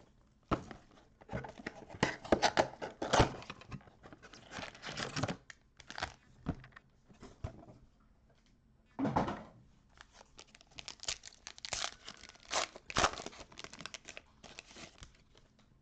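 Packaging of a 2021 Prestige football card mega box being torn open and crinkled: irregular bursts of tearing and rustling wrapper, with a short pause about halfway through.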